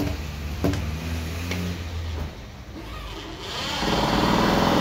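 A small motor-driven machine: a low steady hum with a click about every two-thirds of a second, then about a second from the end a louder, higher run of the motor.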